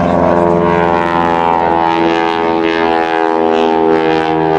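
Single-engine aerobatic biplane's piston engine and propeller running as it flies past overhead, a loud steady buzzing note with many overtones.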